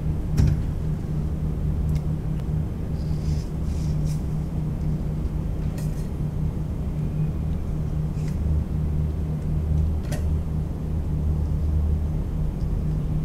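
A steady low mechanical hum throughout, with a few light clicks of a kitchen knife on a plastic cutting board and brief wet rustles as giant squid flesh is cut and its skin peeled back.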